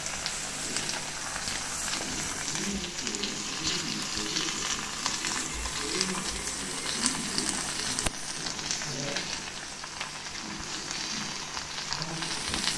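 Tomato and drumstick curry sizzling steadily in a kadai on the stove, with light crackles, as a dry ground coconut, garlic and roasted-gram mix is added.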